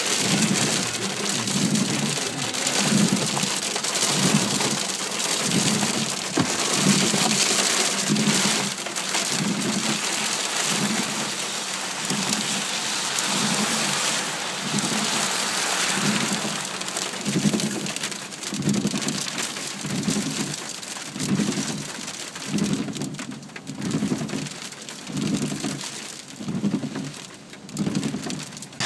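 Heavy hail falling, a dense steady hiss of hailstones striking the ground and vehicles. Beneath it, a low pulse repeats about once a second.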